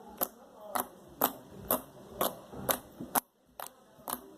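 Homemade slime being pressed and worked by hand, giving sharp popping clicks about twice a second.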